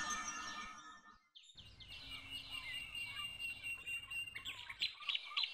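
Background music fades out in the first second. After a brief silence, quiet outdoor ambience with birds chirping follows, and from about four and a half seconds in one bird repeats a short, high chirp about twice a second.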